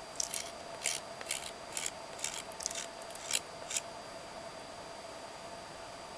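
Knife blade scraping resin-soaked jack pine wood into shavings: about ten short, quick scrapes that stop about four seconds in.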